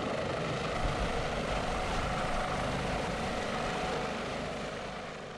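Airbus H145M military helicopter flying: steady rotor and engine noise, fading out near the end.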